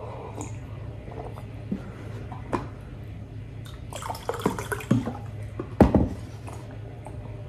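Water poured briefly from a plastic jug into a glass mug about four seconds in, among light knocks as the glass and jug are handled. The loudest sound is a single thump about six seconds in.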